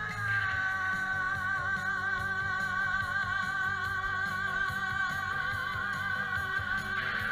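Background music: a long sung note held with vibrato over a steady instrumental backing.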